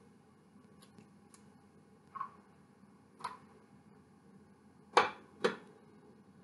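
Egg being cracked: a few light taps, then two sharp knocks about half a second apart as the shell is rapped against a hard edge.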